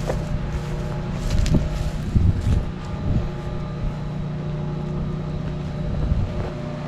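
A motor or engine running at a steady hum, with a few low bumps of wind or handling on the microphone.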